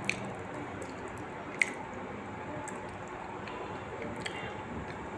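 A few sharp wet mouth clicks, like lip smacks, close to the microphone: one just after the start and a louder one about a second and a half in. A steady background hiss runs under them.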